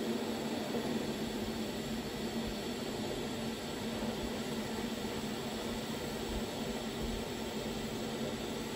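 Argon-shielded electric welding arc buzzing steadily, with a hiss over it.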